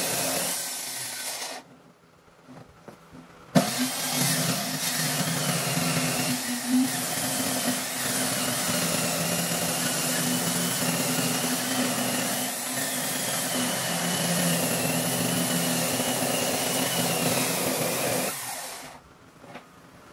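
Electric handheld circular saw ripping along a thick wooden slab. It runs briefly and stops, starts again about three and a half seconds in and runs steadily through the cut, then is switched off and winds down near the end.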